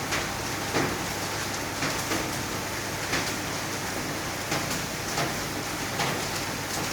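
Steady rain hissing down, with single heavier drops tapping out of it about once or twice a second.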